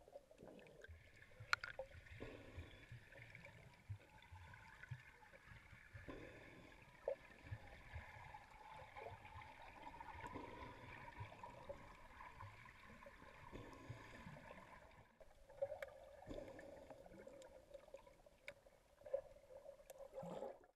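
Faint, muffled underwater noise picked up through an action camera's waterproof housing: low water rumble and gurgling with a few small clicks from bubbles and movement.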